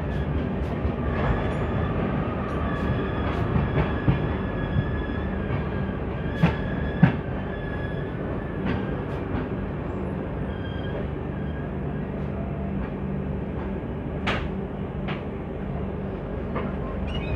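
Passenger train coaches rolling past on the adjacent track, heard from the doorway of another train: a steady rumble of wheels on rails with a thin, high wheel squeal and scattered sharp clicks. The loudest clicks are a pair about six and seven seconds in.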